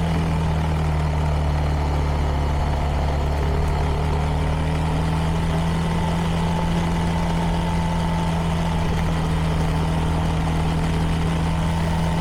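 CFMoto 300NK's single-cylinder engine, with its stock exhaust, running at a steady low engine speed while the motorcycle is ridden, holding one even pitch throughout.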